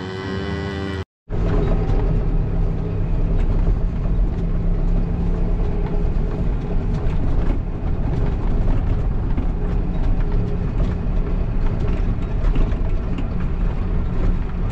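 Tractor engine running steadily, heard from inside the cab while driving on a rough dirt road, with frequent rattles and knocks from the cab over the bumps. It cuts in abruptly about a second in.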